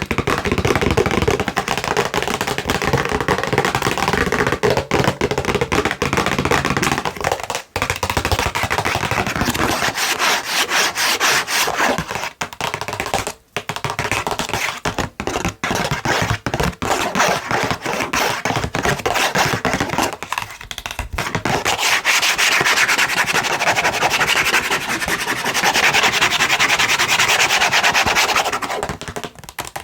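Long fingernails scratching and rubbing fast on a cardboard tissue box, a dense rasping run of quick strokes with a couple of brief pauses.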